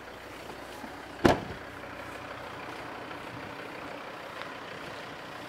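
A car door shuts with a single loud thud about a second in, over the steady running of the Volvo V70's 2.0 D3 turbo-diesel engine at idle.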